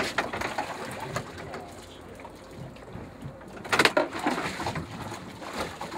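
A freshly landed cobia thrashing on a wet boat deck, its body and tail slapping the deck in sudden wet thumps, with the loudest run of slaps about four seconds in.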